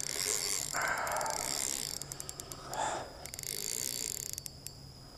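Spinning reel's drag clicking in short runs as a big common carp pulls line off the spool. Two brief rushes of noise come about a second in and near the three-second mark.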